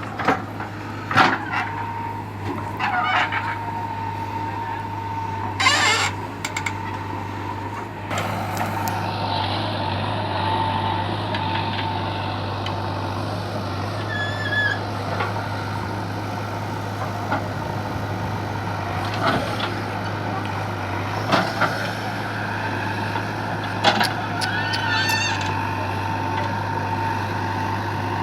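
JCB 3DX backhoe loader's diesel engine running steadily under work, with a steady whine over the engine note. About half a dozen sharp clanks and knocks come from the machine working its bucket.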